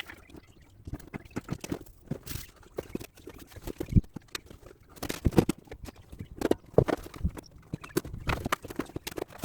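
Irregular knocks, clicks and thuds of hand tools working on a car's crash-dented rear wheel arch panel, with the heaviest knock about four seconds in.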